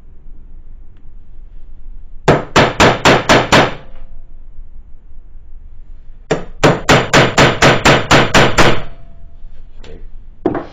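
Hammer striking a punch on a 1/8-inch steel plate, putting an indent in it to start a drill hole so the bit won't walk. It comes as a run of about six quick metallic strikes, then about ten more a few seconds later, with the plate ringing faintly after them.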